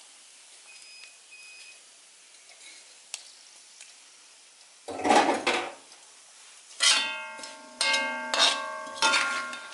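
A metal spoon scraping once across a metal wok about five seconds in, then striking the wok four times in the last three seconds, each clang ringing on. It is fried grated coconut being scooped out of the frying oil.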